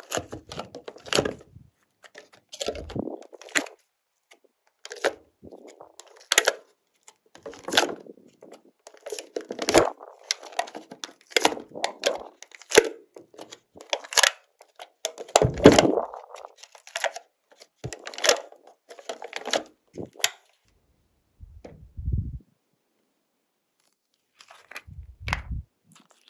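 Glossy slime being worked by hand, giving short bursts of sticky crackling and popping every second or so, with a couple of dull thumps near the end.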